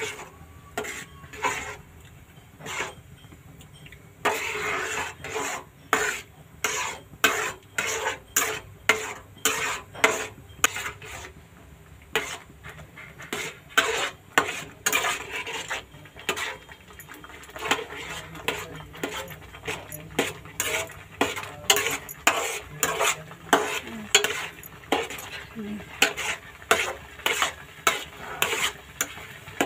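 Metal slotted spatula scraping and knocking against a non-stick kadhai in quick repeated strokes, about one to two a second, stirring semolina upma on low heat as the rava soaks up the water and thickens.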